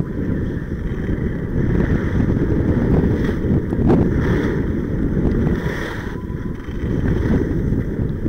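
Wind rumbling over a moving skier's camera microphone, with the hiss of skis sliding and scraping on groomed snow. A short knock comes about four seconds in.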